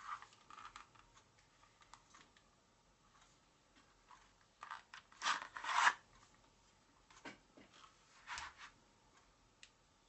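Handling noise from a metal gas-blowback airsoft pistol and its magazine: scattered rubs and scrapes. The loudest is a scrape lasting about a second, about five seconds in, with a shorter one about eight seconds in.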